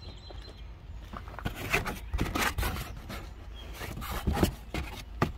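Irregular scraping and rustling, with a few sharp clicks, over a steady low rumble.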